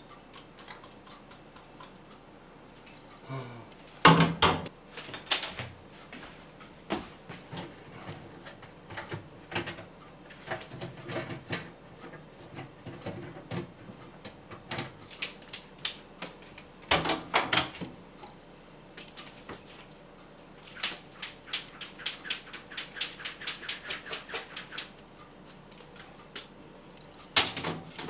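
Clicks, knocks and rattles of ventilation-fan parts being handled and fitted, with a few louder knocks and a quick run of even clicks near the end.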